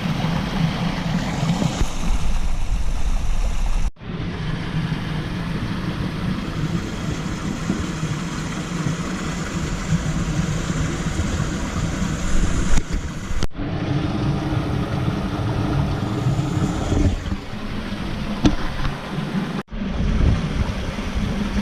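Steady rush of a rain-swollen stream spilling through a small rocky cave and waterfall. The sound cuts out briefly three times.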